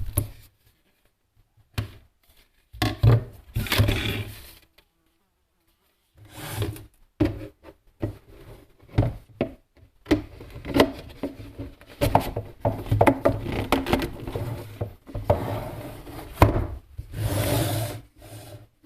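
Intermittent handling noises: short spells of rubbing and scraping with sharp clicks and knocks, broken by brief silent pauses.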